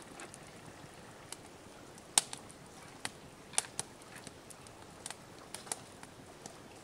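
Fatwood fire crackling: irregular sharp pops over a faint hiss, the loudest about two seconds in.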